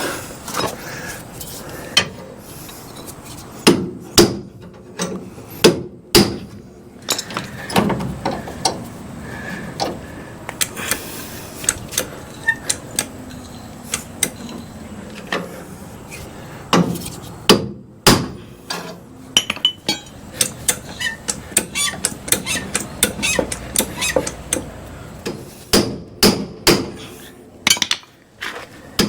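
Hammer blows on the steel front frame rail of a 1966 Ford Ranchero, driving a bent flange back into shape. The strikes come at an irregular pace, some singly and some in quick runs, each with a short metallic ring.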